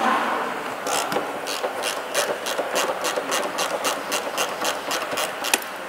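Hand socket ratchet clicking in an even series, about three clicks a second, as it undoes a car's front seat bolt.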